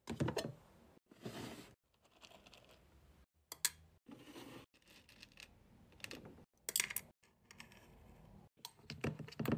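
Hard-wax beads clicking and tapping into an empty stainless-steel wax warmer pot, with a metal scoop and a wooden stick knocking on the metal and the warmer's plastic lid being handled. The sound comes in short stretches that cut off suddenly between edits.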